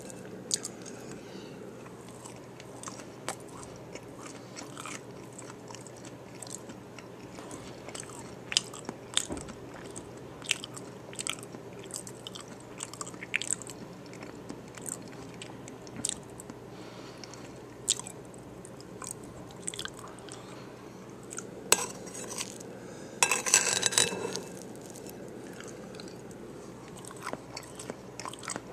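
A person chewing and biting into a taco bowl, with crisp crunches from the hard-shell tortilla bowl. A louder run of crunches comes late on.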